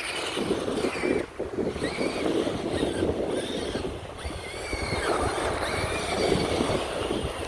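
Monster Jam Megalodon RC truck driving through water: a steady churning splash, with a faint electric motor whine rising and falling in pitch.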